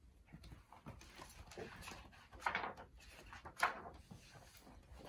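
A large picture book being handled and opened, its cover and pages rustling and swishing, loudest about halfway through and again a second later.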